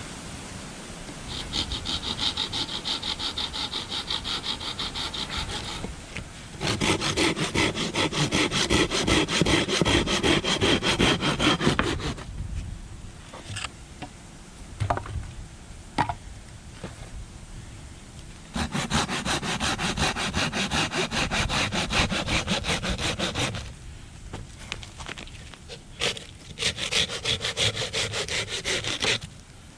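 Hand saw cutting firewood in four bouts of rapid back-and-forth strokes, with pauses between them. A few sharp knocks of wood fall in the longest pause.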